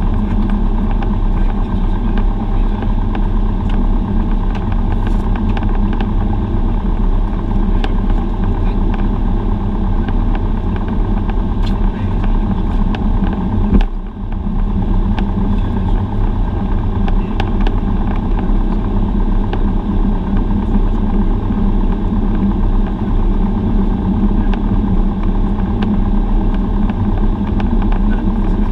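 Cessna 172's piston engine and propeller running steadily, heard from inside the cockpit, with a short click and a brief drop in loudness about halfway through.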